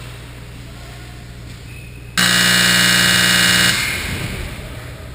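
Ice rink scoreboard horn sounding once, loud and steady for about a second and a half, then echoing away through the arena.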